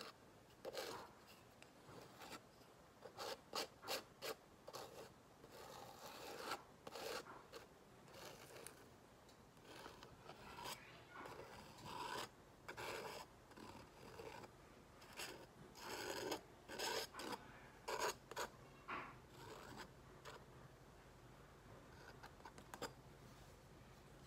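Palette knife scraping and spreading wet acrylic paint across a canvas pad in many short, irregular strokes, some louder than others.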